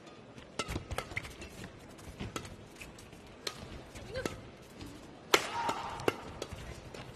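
Badminton rally: rackets striking the shuttlecock in a quick back-and-forth exchange, sharp hits about half a second to a second apart, the loudest about five seconds in.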